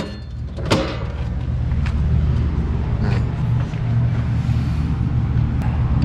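A disconnect switch clicks on, and the belt-driven blower of a Carrier package air-conditioning unit starts, building up over about two seconds to a steady low hum. This is the test run on a newly fitted blower shaft and bearings.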